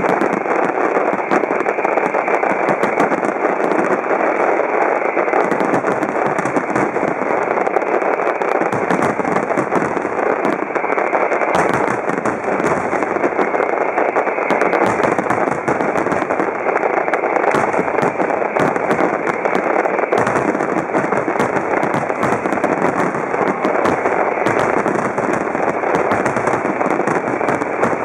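Fireworks finale: a dense, unbroken barrage of aerial shell bursts and crackling, the bangs following so fast that they run together into one continuous rattle at a steady loud level.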